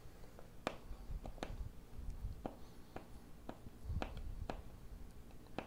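Faint, irregular clicks and ticks of a hand screwdriver working mounting screws snug into a wall board, with a soft low handling thud about four seconds in.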